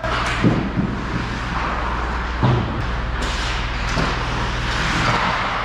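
On-ice ice hockey game sound: skates scraping the ice and a few sharp knocks of sticks and puck, over a steady low hum of the arena.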